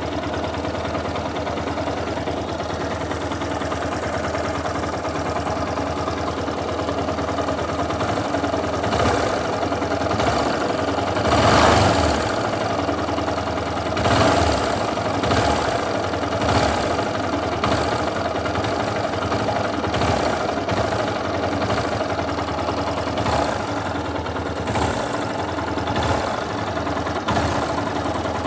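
Yamaha Fazer 250's single-cylinder engine idling steadily, then blipped with the throttle several times, the biggest rev about eleven seconds in. The engine is making a noise whose cause the owner doesn't know.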